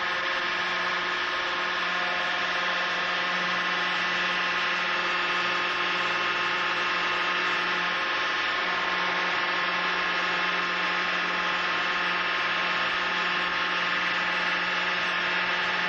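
Hydraulic pump of a horizontal sling test bed running with a steady, unchanging hum and whine as it loads a sling in a destruction (break) test.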